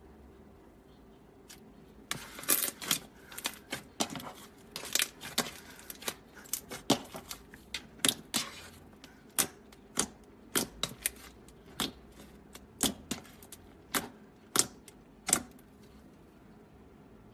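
Slime being pressed and pulled by hand, giving a string of sharp, irregular clicks and pops, about one or two a second, that start about two seconds in and stop near the end.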